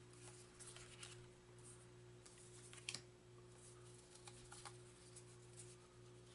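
Faint rustling and a few light clicks of game cards being handled and sorted, with one slightly sharper click about three seconds in, over a low steady hum.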